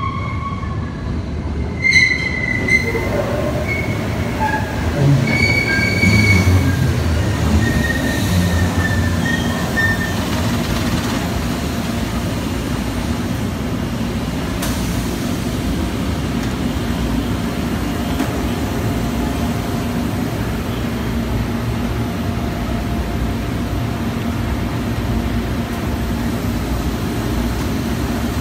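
MBTA Green Line light-rail train pulling into an underground platform: its wheels squeal on the track in several high held tones over the first ten seconds, under a low rumble that peaks around six seconds in. It then stands at the platform with a steady hum.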